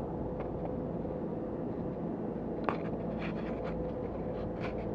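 Light clicks and scuffs from a person walking with a handheld camera, irregular and starting about two and a half seconds in, over a steady low rumble.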